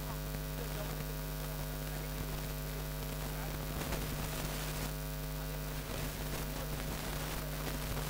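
Steady electrical mains hum, a low buzz with several evenly spaced tones, over constant hiss.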